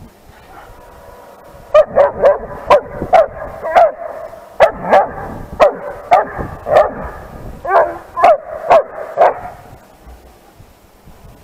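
Ten-month-old long-coated German Shepherd barking in quick runs of sharp barks, about two a second, starting a couple of seconds in and stopping shortly before the end: alert barking at another dog.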